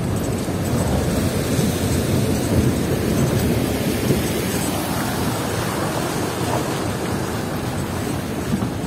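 Steady rumble and rattle inside an old jeep's cabin as it drives over a rough, rocky unpaved track, a continuous low noise without a break.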